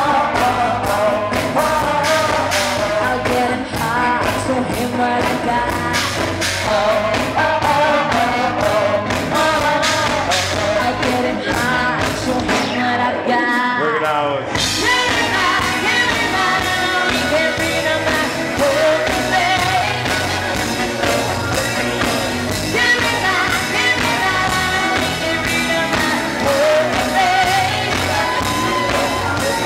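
A live band playing a rock-and-roll song with a lead singer. About halfway through, the drums drop out for a moment, leaving a sliding sung note, and then the full band comes back in.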